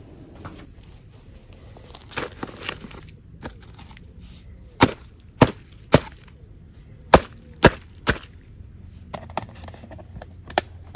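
Plastic food containers tapped sharply to knock kitchen scraps out onto a compost heap: two quick runs of three hard knocks about half a second apart, with a few lighter taps around them.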